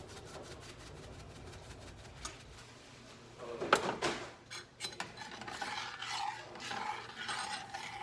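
Faint rasping as salt and pepper are added to gravy in a saucepan, then a loud clatter about three and a half seconds in. After that a spoon scrapes and stirs the gravy in the metal pan.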